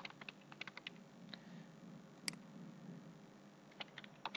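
Computer keyboard keystrokes and mouse clicks: a quick run of taps near the start, a single sharper click in the middle, and another short run of taps near the end, over a faint low hum.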